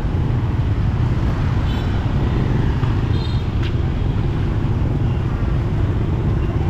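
Street traffic noise: a steady rumble of vehicles running past, with a faint brief sound about halfway through.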